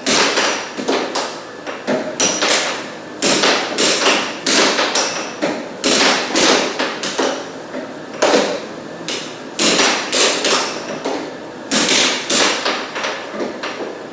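Air hockey puck being struck back and forth by the mallets and bouncing off the table's rails: a rapid, irregular series of sharp plastic clacks during a rally.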